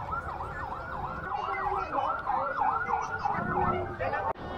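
Electronic vehicle siren in fast yelp mode, its pitch sweeping up and down about four times a second over a low background rumble.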